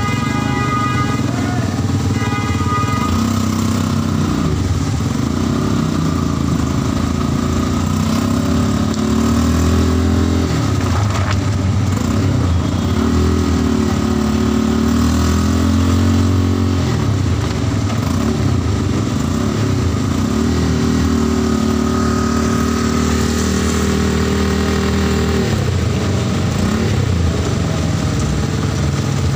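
Auto-rickshaw engine running, heard from inside the open cabin, its pitch rising and falling as the rickshaw speeds up and slows in traffic. Steady rain hiss runs underneath, and two short high beeps sound in the first few seconds.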